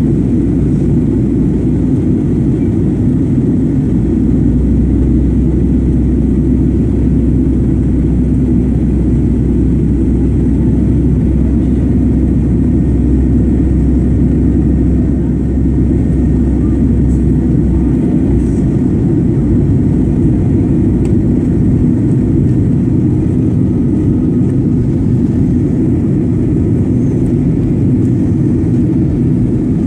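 Steady roar of airflow and jet engines inside the cabin of a Boeing 737-900 on its descent to land, with a deeper rumble underneath from about four seconds in that eases off about eighteen seconds in.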